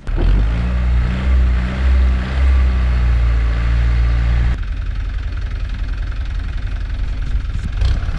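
A loud, low engine idling steadily. About four and a half seconds in it gives way abruptly to a steady, hazier low rumble.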